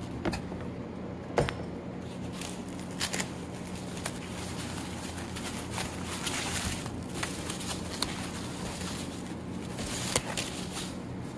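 The thin white plastic wrapping of a new fuel pump rustling in bursts as it is pulled off by hand, with a few sharp handling clicks. A steady low hum runs underneath.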